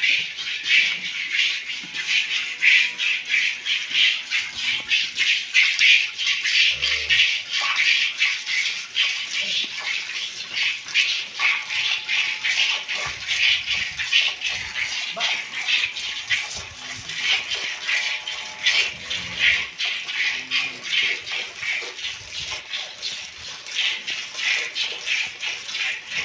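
Cow being milked by hand into a metal pail: alternating squirts of milk hiss into the pail and the milk already in it in a steady rhythm, about two a second.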